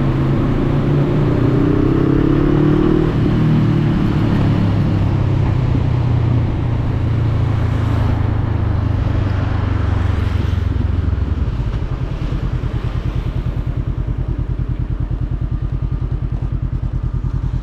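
Motorcycle engine running: its pitch rises over the first few seconds as it accelerates, holds steady, then about eleven seconds in it drops to an evenly pulsing idle.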